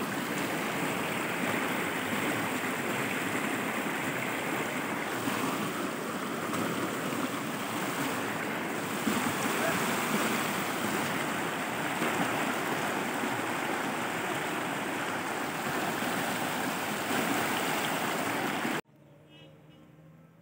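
Stream water rushing and splashing over a rock ledge, a steady loud rush. It cuts off suddenly near the end, leaving a much quieter background.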